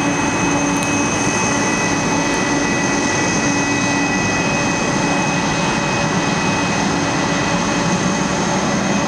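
Boeing 747 cargo jet's engines running at taxi power: steady jet noise with several high, steady whine tones over a low hum.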